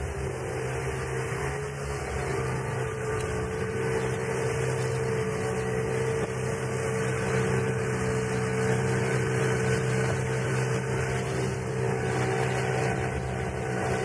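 A boat's engine running steadily at an unchanging pitch.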